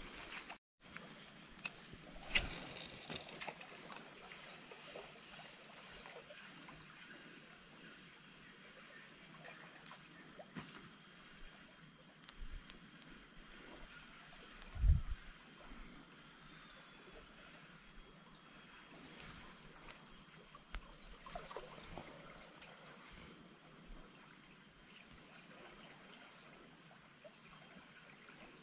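A steady, high-pitched drone of insects, unbroken throughout. A couple of short low knocks cut through it, the louder one about halfway through.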